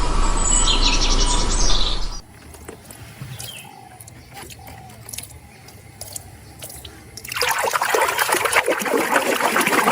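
Water running and splashing as muddy plastic toys are rinsed clean, loud and rushing from about seven seconds in. Before that, birds chirp over a steady hiss for the first two seconds, then a quieter stretch of small clicks and handling sounds.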